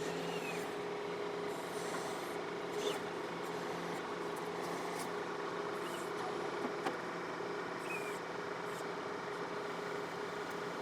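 John Deere 4052R compact tractor's diesel engine running steadily, with a few short clicks and brief high squeaks over it.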